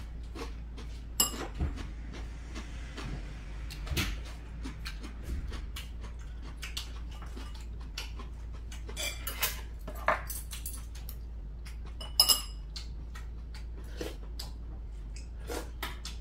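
Metal spoons and chopsticks clinking and scraping against ceramic bowls and plates during a meal: scattered small clicks, with a few sharper clinks about a second in, at about four seconds, and two close together around twelve seconds.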